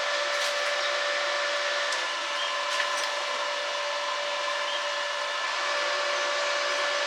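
Electric welding arc burning steadily: an even hiss with a faint steady whine and a few light ticks.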